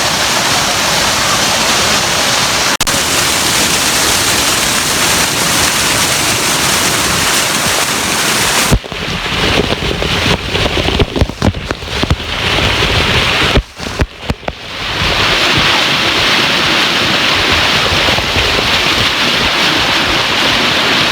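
Waterfall's steady, loud rush of falling water. For several seconds in the middle the sound turns choppy, dipping and coming back in uneven spurts, before the steady rush returns.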